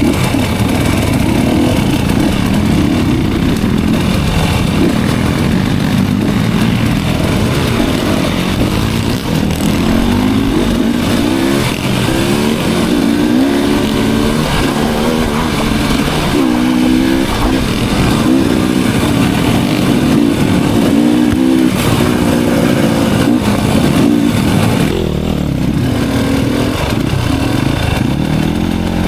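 Dirt bike engine running on a trail ride, its pitch rising and falling again and again with the throttle.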